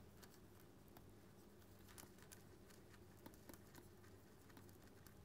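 Near silence: faint, irregular light ticks and scratches of a stylus writing on a tablet screen, over a low steady hum.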